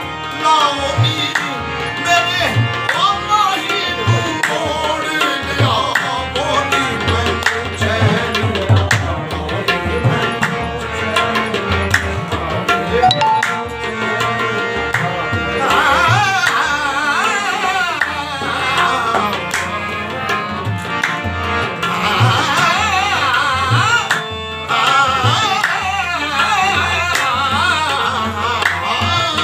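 Harmonium and tabla playing together, with sustained reedy chords under a steady run of tabla strokes. A singer's wavering melodic line rises over them in places, most strongly in the second half.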